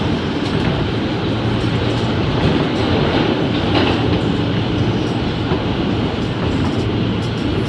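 New York subway R160B car with Alstom propulsion running at speed through a tunnel, heard from inside the car: a steady rumble of wheels on rail with a low hum, and a few clicks as the wheels pass over rail joints.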